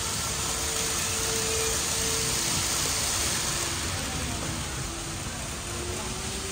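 Steady in-shop background noise with a faint thin hum from an N-gauge model train running along the layout, rising slightly in pitch in the second half.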